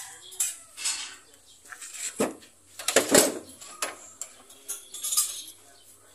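Metal hand tools clinking and scraping against a vehicle's steel dashboard frame, several sharp clinks at uneven intervals, the loudest a couple of seconds in, as a mechanic works on the wiring under the dash.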